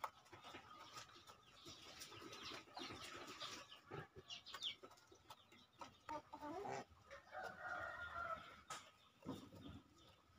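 Chickens clucking softly at a feeder, with scattered sharp taps of beaks pecking grain from plastic feed trays. A few low murmured calls come in the second half.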